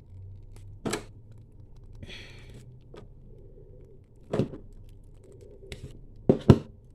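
Hard plastic being handled: a few sharp clicks and knocks, one about a second in, one at about four seconds and two close together near the end, the last the loudest, with a brief light rustle in between.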